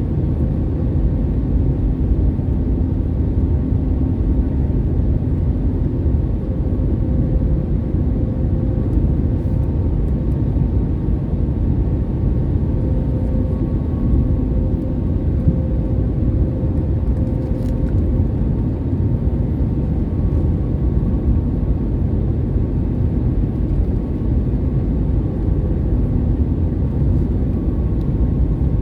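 Steady low rumble inside the cabin of an Airbus A320neo rolling out on the runway after landing, as its wheels run over the runway and its CFM LEAP-1A engines run near idle, with a faint steady hum on top.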